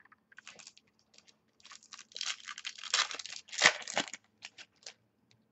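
A trading card pack's foil wrapper crinkling and tearing as it is handled and opened: a scatter of rustles, thickest in the middle, with the loudest rip about two-thirds of the way through.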